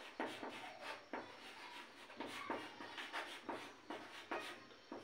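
Chalk writing on a blackboard: a series of short, scratchy strokes and taps as a word is written out.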